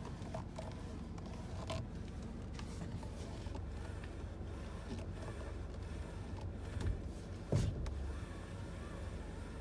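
Car steering being worked, giving scattered faint clicks and scrapes over a steady low hum, with one louder knock about seven and a half seconds in: the steering noise being checked.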